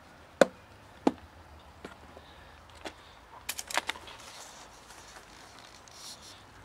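Snap-lock plastic food box: its lid clips click open twice, sharply. About three and a half seconds in comes a short rattling clatter as dry kibble lands in a metal tray, then faint crunching as a cat eats the kibble.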